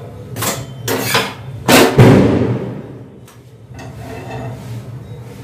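Firecrackers (sound crackers) going off: a few bangs in quick succession over the first two seconds. The last and loudest trails off in an echo that dies away over about a second.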